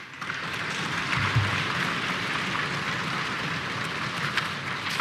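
Members of a legislative assembly applauding together, a dense, steady patter of many hands, in approval of the motion just declared adopted.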